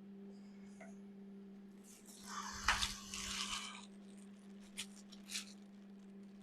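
A steady low electrical hum, with a rustling, clattering burst of handling about two seconds in that holds one sharp click, then two short clicks near five seconds, as small fittings are handled.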